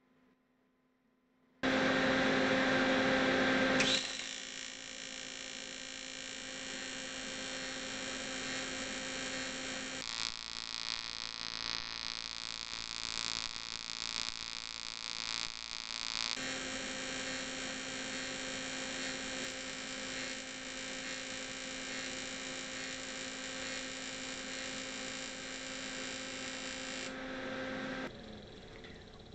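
TIG welding arc on aluminum tubing, run from an Everlast PowerTIG 250EX inverter on AC: a steady electric buzz that starts about two seconds in and is loudest for its first couple of seconds. Midway it turns rougher and fluttering for about six seconds, then it stops about a second before the end.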